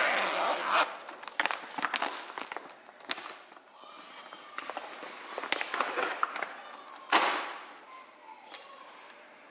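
Clear plastic packaging bag crinkling and crackling as a folded fabric curtain panel is worked out of it by hand. There is a loud burst of crinkling at the start and another about seven seconds in, with scattered small crackles between.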